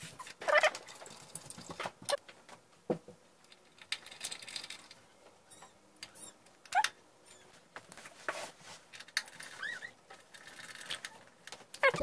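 Scattered light clicks, taps and scrapes of a screwdriver and small screws working against a steel PC case's drive bay as a plastic front-panel unit is fitted, with a few short squeaks about two-thirds of the way through.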